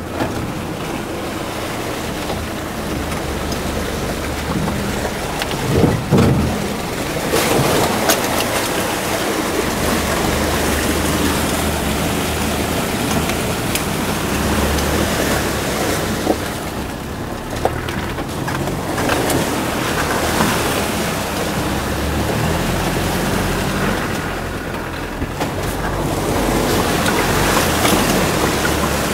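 Land Rover Defender engine running as it is driven off-road, with a steady rushing noise over it.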